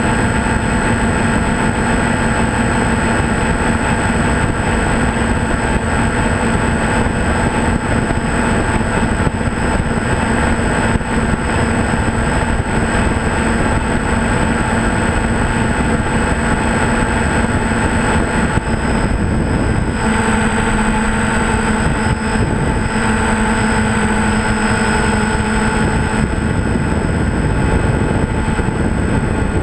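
A small aircraft's engine runs in a steady drone with wind rushing past, heard from on board. The engine note shifts slightly about two-thirds of the way through.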